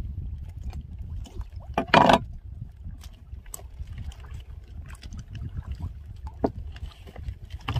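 Steady low rumble of wind and sea around a small fishing boat, with scattered knocks on the deck and one loud thump about two seconds in as a tuna is handled on board.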